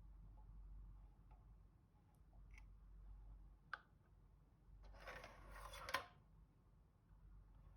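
Seagull 4B twin-lens reflex camera mechanism being worked: a few faint clicks, then a whirring rasp about a second long that ends in a sharp click.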